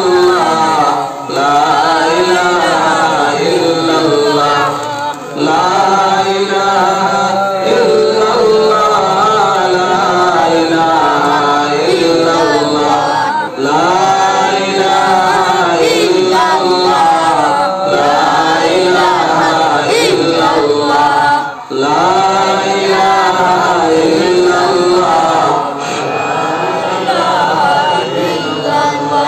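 A man singing a devotional chant in a melodic voice with long, wavering held notes, pausing briefly for breath a few times.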